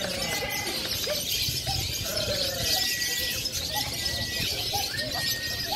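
Many lovebirds chattering and trilling at once in contest, a dense high-pitched chatter. Several held whistle-like notes and lower wavering calls are mixed in.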